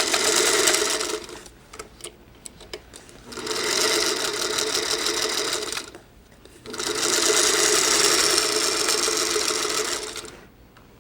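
Electric sewing machine stitching fabric strips in three short runs: about a second at the start, then about 2.5 s, then about 3.5 s. Between runs the machine stops, with a few light clicks.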